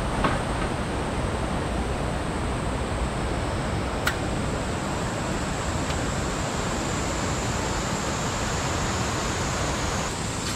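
Steady rushing of a rocky mountain stream, with a single sharp click about four seconds in.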